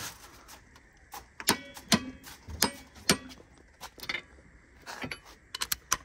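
A string of sharp metal clinks and knocks from a chrome torque wrench and its socket being handled on a bolt clamped in a cast-iron bench vise, a few of them with a short metallic ring, the loudest about a second and a half to two seconds in.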